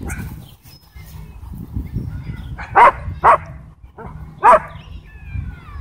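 A dog barks three times: two short sharp barks half a second apart, then a third about a second later, over a low steady rumble.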